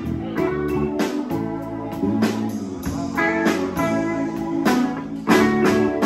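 Live blues-tinged band music: electric guitar over keyboard, bass guitar and a drum kit, with sharp drum and cymbal hits throughout.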